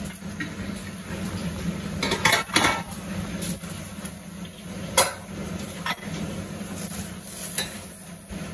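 Kitchen clatter: a few sharp clinks and knocks of dishes and utensils being handled, about two seconds in and again at five seconds, over a steady low hum.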